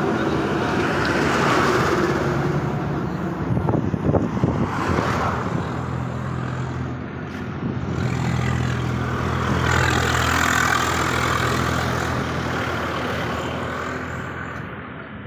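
Road traffic passing, trucks among it: a steady rush of engine and tyre noise that swells twice, with a low engine drone from about six to thirteen seconds in and a few sharp knocks around four seconds. It fades near the end.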